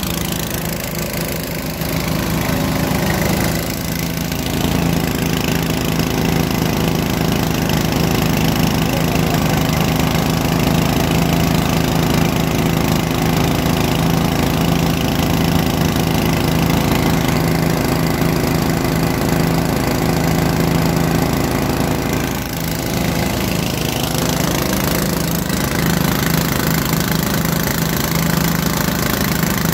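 Engine of a small well-drilling rig running steadily as it drills, a continuous drone with two brief dips in level, about three and a half and twenty-two seconds in.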